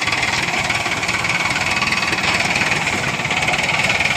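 Diesel engines of two Mahindra tractors, a 575 DI and a 585, running steadily together while the tractors are chained back to back and pull against each other.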